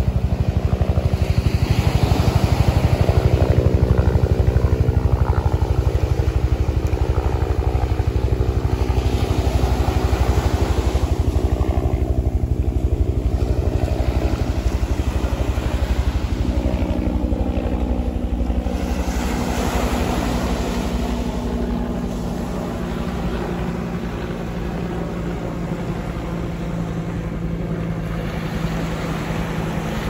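An engine running steadily, its pitch shifting about halfway through, over the wash of small waves on the shore.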